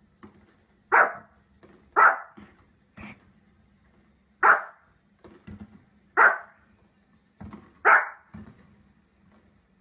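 A small fluffy spitz-type dog barking: five sharp, high barks spaced a second or more apart, with softer short yips in between.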